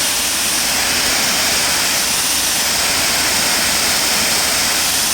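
Steady hiss of a water jet spraying onto a car's windows, testing how water beads on the graphene ceramic-coated glass.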